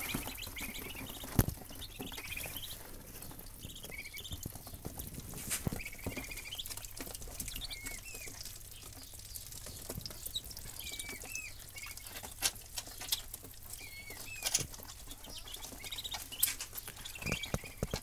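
A brood of Muscovy ducklings peeping softly, short high curling peeps scattered throughout, with sharp clicks and taps among them, the loudest about a second and a half in.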